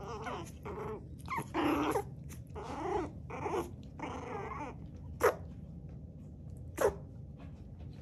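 Two Yorkshire terrier puppies growling and whining while they play-fight, then two short, sharp puppy sneezes about five and seven seconds in.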